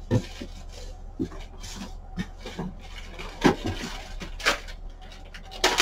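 Rummaging through a box of packaged goods by hand: scattered knocks and clicks, about one a second, as items are moved about.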